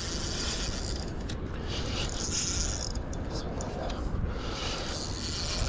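A spinning reel being cranked steadily, winding in line.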